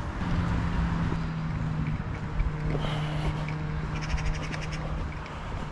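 Wind noise on the microphone while walking along a dirt path, with a steady low hum and a short run of rapid clicking about four seconds in.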